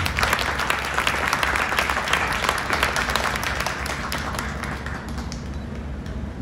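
Audience applauding: a dense patter of many hand claps that thins out and fades over the last second or two.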